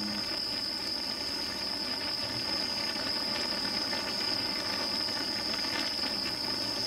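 Beef bulgogi with onions cooking in its juices on a round griddle over a gas burner: a steady hiss and rush, with light scrapes of a spatula stirring.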